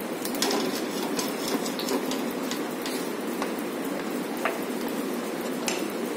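Wooden spatula knocking and scraping now and then in a frying pan of bananas simmering in butter-caramel syrup, over a steady low hiss.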